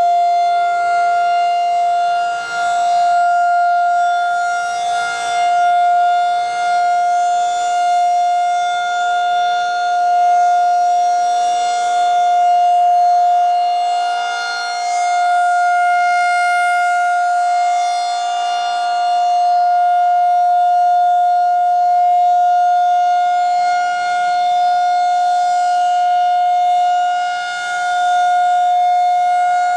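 Federal Signal 2001 rotating outdoor warning siren sounding a steady single-pitch tone during a monthly test. The pitch holds level while the loudness swells and fades every few seconds as the rotating horn sweeps past.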